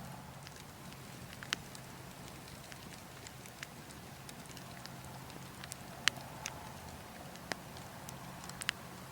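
Burning logs crackling with scattered sharp pops, a handful of them much louder, over a steady low wind.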